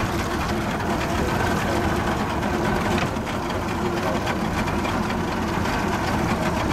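Boat's outboard motors running steadily.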